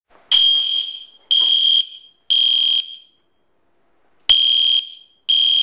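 Smoke alarm sounding the three-beep evacuation pattern: three loud, high-pitched beeps about a second apart, a pause, then two more as the pattern starts again. It was set off by smoke from food burned in an electric skillet.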